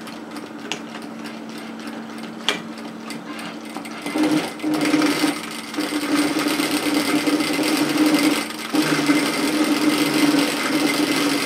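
Industrial sewing machine stitching a row of shirring. There is a steady hum for the first few seconds, then the stitching starts about four seconds in and runs on, with one short pause partway through.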